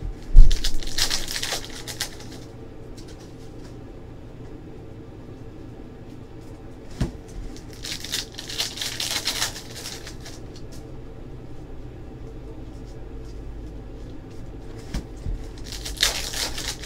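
Basketball card pack wrappers crinkling and being torn open in three bursts, about half a second in, around eight seconds in and near the end, with a sharp thump at the start and quieter handling of cards between.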